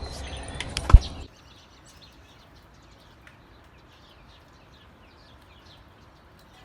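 A single sharp thump about a second in, then small birds chirping faintly.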